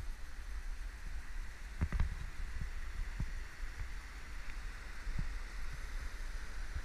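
Fast mountain river rushing over rocks as a steady hiss, with low wind rumble on the microphone. A few dull knocks, the strongest about two seconds in.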